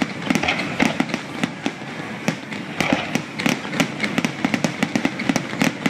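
Aerial firework shells bursting in a rapid, irregular string of sharp bangs, several a second, over a continuous hiss of further bursts.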